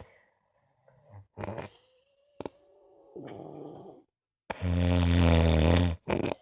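Snoring: a short rough snore about three seconds in, then a long, loud snore with a steady low buzzing pitch from about four and a half to six seconds in. A few brief sharp sounds fall between the snores.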